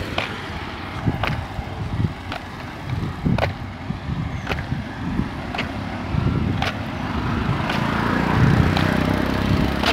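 Road traffic of three-wheeler CNG auto-rickshaws, engines running and passing, with one passing closer and louder about 8 seconds in. A sharp click repeats about once a second throughout.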